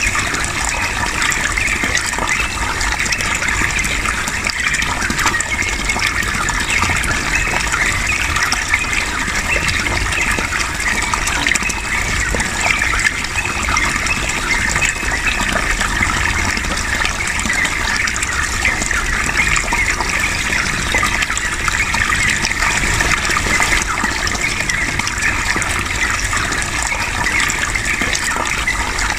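Flowing water, a steady continuous gush that does not break or change.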